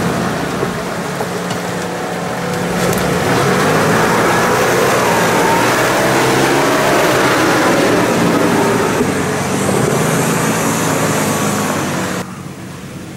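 Engine of an off-road 4x4 running as it drives along a rough forest track, with a loud noise of driving over the engine hum. The sound drops suddenly about twelve seconds in.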